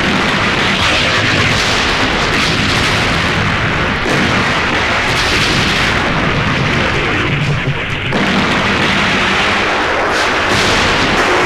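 Film sound effects of large explosions and burning fire as a building blows up: loud and continuous, with fresh surges about four and eight seconds in.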